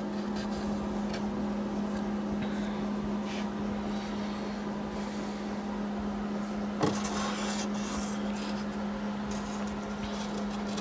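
A steady low hum, with faint rustling and scraping as the wooden clock case is handled and a single light knock about seven seconds in.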